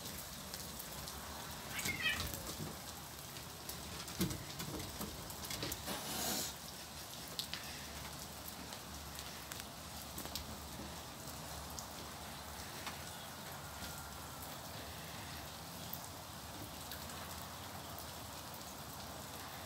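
Steady rain falling and dripping on a wooden deck, many small ticks over an even hiss. A few brief louder noises stand out in the first six seconds, one of them a sharp knock.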